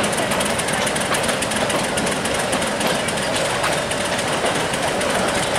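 Two diesel locomotives at the head of a passenger train running steadily as the train pulls slowly along curving track, with a loud, even engine noise and some light clicking from the wheels.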